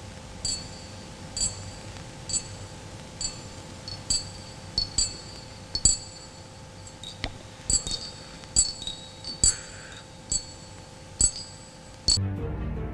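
A slow series of short, high, glassy clinks, roughly one a second and sometimes in quick pairs, over a faint steady hum. Music comes in suddenly near the end.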